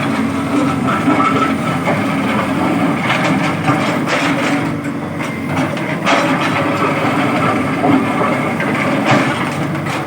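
Heavy diesel road-works machinery running steadily, with a few clacks and scrapes.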